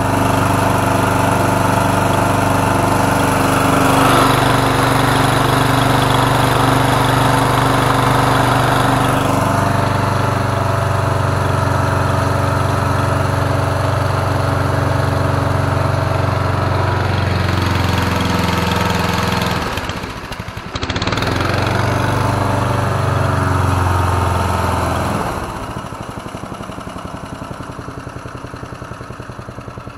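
A 12 hp Briggs & Stratton engine on a homemade surface-drive mud motor, running steadily under way. It drops out briefly for about a second roughly two-thirds of the way through, picks back up, then runs lower and quieter for the last few seconds.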